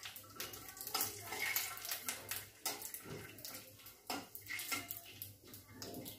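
Cashew nuts frying in a little hot oil in a metal kadai: sizzling and crackling, with a steel spatula scraping and clinking against the pan as they are stirred.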